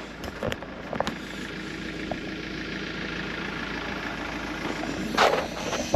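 Campervan engine idling steadily, with a few faint clicks early and a short rush of noise near the end.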